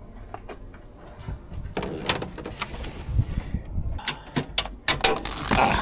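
Clicks, knocks and rattles of hands working on a van's side door and its newly fitted lock, getting busier in the second half.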